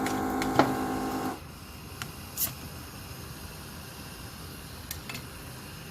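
A steady electric machine hum cuts off suddenly a little over a second in. It leaves a low hiss broken by a few light clicks of tools on the workbench.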